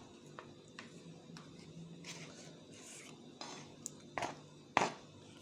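Kitchen utensils being handled around a pot: light clicks and short scrapes, then two sharper knocks near the end, the second the loudest.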